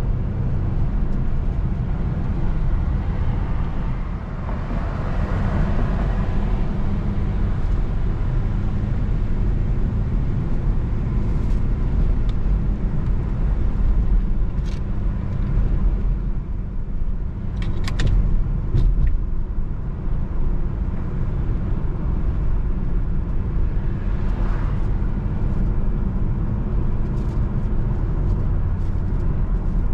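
A car driving on the road: a steady low rumble of engine and tyres, with a few faint clicks.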